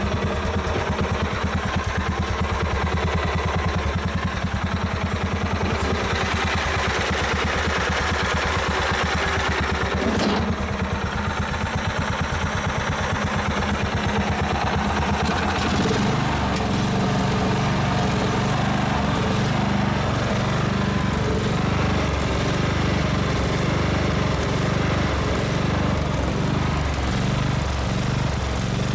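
16 hp Kohler riding-mower engine running steadily on a newly fitted carburetor, a rapid even pulsing exhaust note. About halfway through, its low rumble grows stronger.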